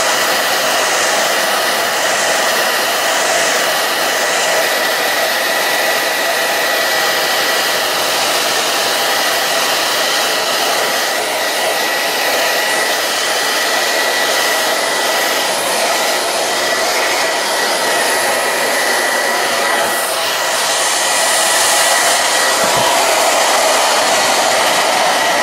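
Hair dryer running steadily on its high setting, drying a freshly washed cloth mouse pad: a constant rush of air with a thin, steady whine, getting a little louder near the end.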